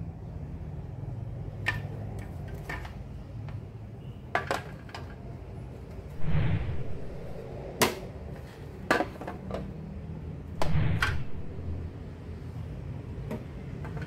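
Clear plastic refrigerator shelves, trays and door bins clacking and knocking against each other as they are handled: a series of sharp clacks with two longer, louder clatters, over a low steady rumble.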